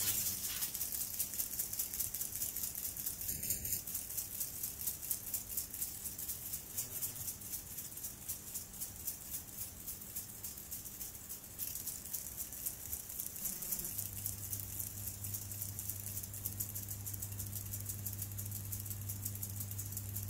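Rubber-band-powered ornithopter (a model dragonfly with four balsa wings) flapping in the hand as its wound rubber unwinds: a fast, even rattle of the wing linkage and wingbeats. A low steady hum joins in about two-thirds of the way through.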